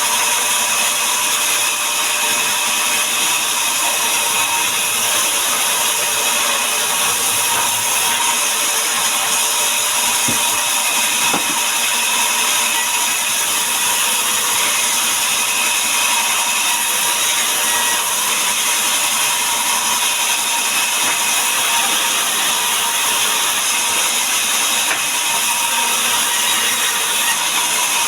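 Power saw cutting mahogany timber into boards, running steadily throughout with an even, mostly high-pitched noise.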